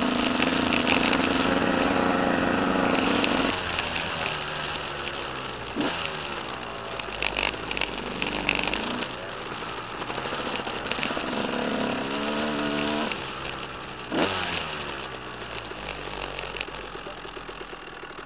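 Dirt bike engines running and revving, the pitch rising and falling with the throttle several times. The sound settles lower and quieter near the end.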